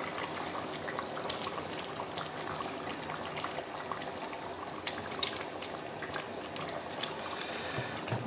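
Potato-and-chicken curry gravy bubbling at a simmer in a pot on a gas stove: a steady bubbling hiss dotted with small pops.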